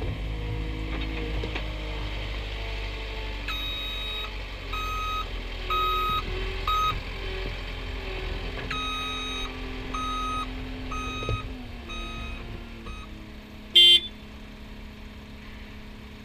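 Cat 272D skid-steer loader's diesel engine running as the machine manoeuvres and turns, with its reversing alarm beeping in two runs of short beeps. The engine drops to a lower, steady idle about twelve seconds in, and one short, loud blip comes about two seconds later.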